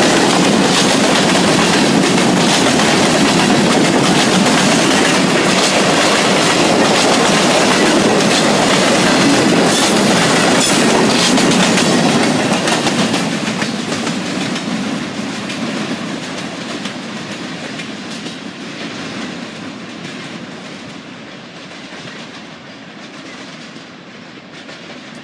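Freight train cars rolling past close by: a loud, steady rumble of steel wheels on rail with rapid repeated clicks. About halfway through, the last car goes by and the sound fades away as the train moves off.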